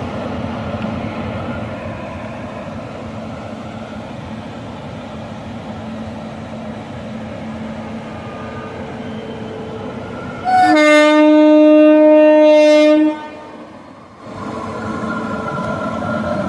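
Indian Railways electric locomotive rolling slowly alongside the platform with a steady hum, and one long horn blast of about two and a half seconds just past the middle.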